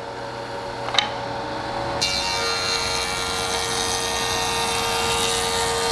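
Jointer running with a steady machine hum, with a sharp click about a second in. About two seconds in, its cutterhead starts cutting the edge of a plywood blank, taking a shallow pass of about 3/16 inch, and a louder, bright cutting noise joins the hum.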